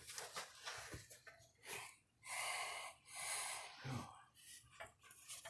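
Faint breathing close to the microphone: about three soft breaths in the middle, with scattered light clicks and taps.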